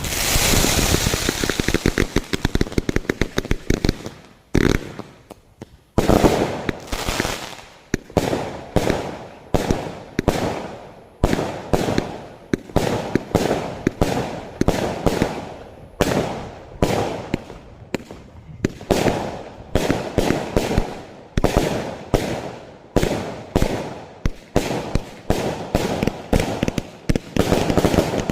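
A 276-shot firework cake firing: a dense run of crackling shots in the first few seconds, a short lull about five seconds in, then a steady sequence of launches and bursts, roughly one or two a second.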